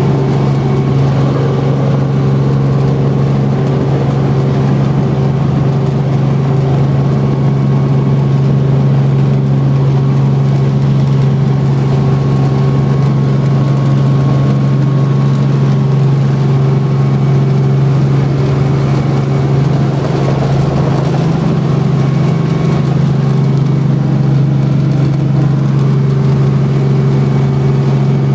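Robinson R44 helicopter's piston engine and rotors heard from inside the cabin, a loud, steady drone with a strong low hum, as the helicopter lifts off and climbs.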